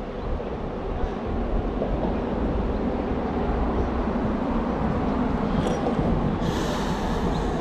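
Steady low rumbling background noise with hiss over it, and a brief higher hiss about two-thirds of the way through.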